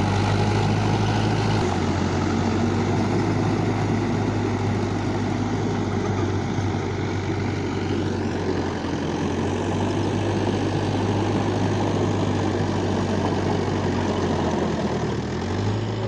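Farm tractor's diesel engine running steadily with a constant low hum while it drives a rotavator tilling the field.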